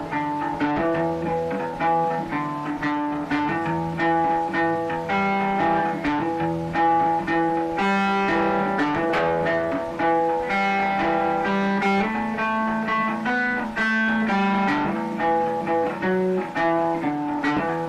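Instrumental background music led by plucked-string notes in a flowing melody.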